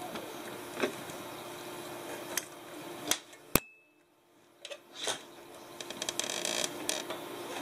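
A kitten playing on carpet close to the microphone: scattered soft scratches, rustles and small clicks. There is one sharp knock about three and a half seconds in, followed by a quieter moment, and then a quick run of small clicks and scratches near the end.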